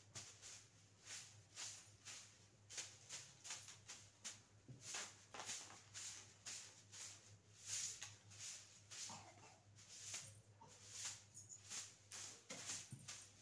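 Short grass hand broom swept in quick strokes across a cement floor: a faint, repeated swish, about two strokes a second.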